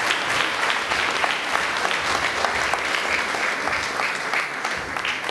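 Audience applauding, many hands clapping, tailing off slightly near the end.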